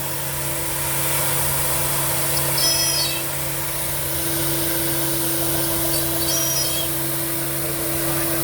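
Gerber Sabre 408 CNC router running a cutting job on its vacuum table: a steady machine hum and hiss, with a short high whine coming back about every three and a half seconds, three times.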